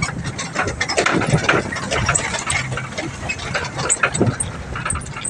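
Boom truck's engine running under way, with many irregular knocks and rattles from the wooden pallets and cardboard bouncing in its open bed.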